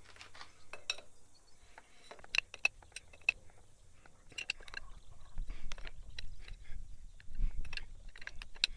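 Two 27mm open-ended spanners clinking and scraping on the steel hydraulic quick-connect fitting as it is tightened: a string of light metallic clicks and ticks, with a low rumble underneath from about five seconds in.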